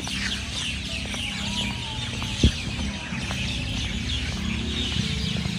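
Many birds chirping together in the dawn chorus: a dense run of short, high, falling chirps over a low rumble, with a single sharp knock about two and a half seconds in.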